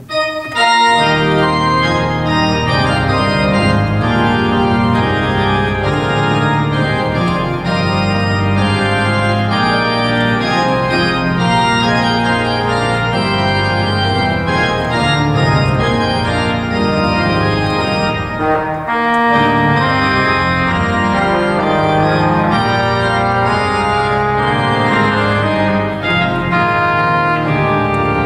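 Pipe organ playing a loud, dense passage of sustained chords on its tuba and trumpet reed stops, which trade phrases in dialogue. It comes in about half a second in after a short pause, with a brief break about two-thirds of the way through.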